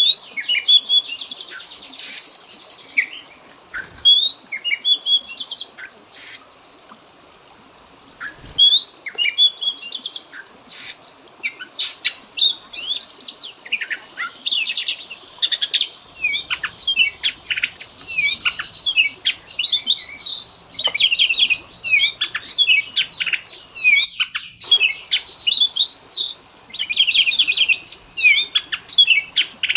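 Oriental magpie-robin (kacer) song: a fast, varied run of whistles, sweeping notes, chirps and trills in short phrases with brief pauses, full of mimicked calls of other birds. It is a lure and training recording of the kind played to captive kacer to get them singing.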